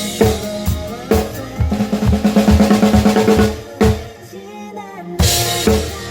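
Drum kit played along with a pop song's backing track: steady beat, then a fast run of snare strokes like a drum fill. After a brief softer moment a loud crash brings the beat back in near the end.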